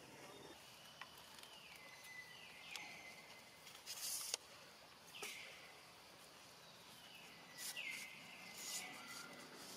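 Faint natural outdoor ambience of wild animal calls: high calls slide down and settle into a steady high tone, several times over. Short hissy bursts come about four seconds in and again near eight seconds.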